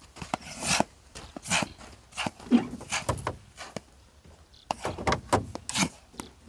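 Irregular crunching footsteps on dry sandy ground.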